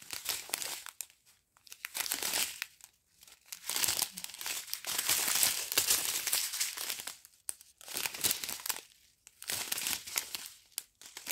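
Small plastic bags of round diamond-painting drills crinkling as they are handled, in irregular bursts with short pauses between them.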